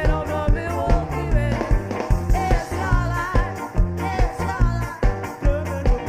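A live band playing an upbeat ska song, with a drum beat about twice a second under a wavering melody line.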